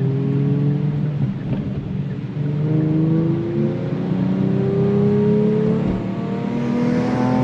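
Kia Stinger GT2's twin-turbo V6 under hard acceleration, its note climbing in pitch, dropping at an upshift about six seconds in, then climbing again.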